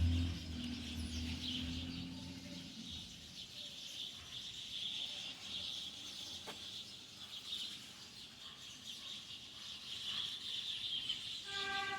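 A large flock of birds roosting in a tree at dusk, chattering and chirping together in a dense, steady din. A low hum fades out in the first few seconds, and just before the end a steady horn-like chord sounds.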